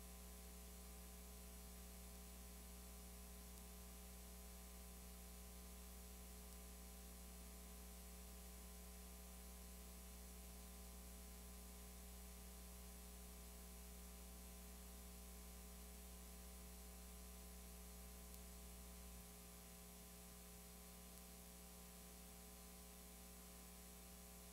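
Near silence: a faint steady electrical hum with hiss, carrying a few steady tones. The deepest part of the hum drops away about three-quarters of the way through.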